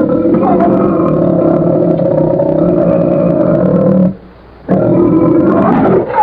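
Cartoon Paralititan (sauropod dinosaur) call sound effect: one long, deep call of about four seconds, then after a short pause a second, shorter call.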